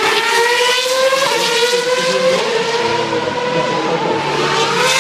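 Formula One car engine at high revs under acceleration, its pitch climbing steadily with a small step about a second in as it changes gear.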